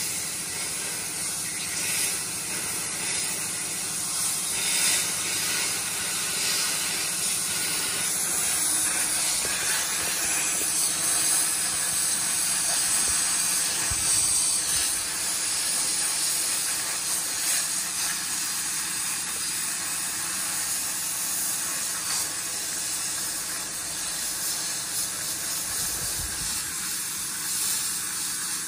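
Plasma cutter cutting steel bar stock: a steady high hiss of the air-driven cutting arc, running without a break.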